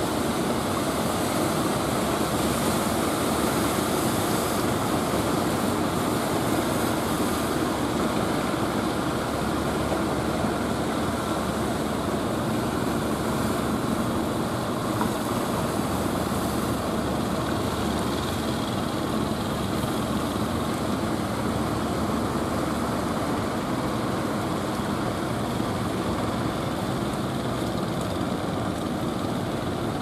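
Steady drone of motor fishing boats' engines mixed with the continuous wash of surf and wind.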